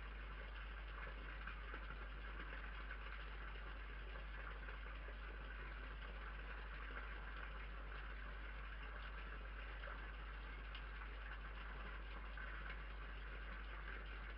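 Steady hiss with a constant low hum underneath, unchanging throughout, with no distinct sound standing out.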